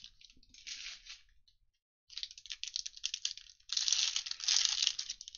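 Foil wrapper of a Panini Rookies & Stars football card pack crinkling and tearing as it is pulled open by hand. It comes in short bursts at first, then crackles almost continuously from about two seconds in, loudest around four seconds in.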